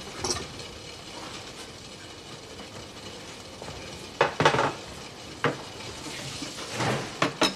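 Dishes and cutlery clinking a few times, about four seconds in and again near the end, over a faint steady hiss.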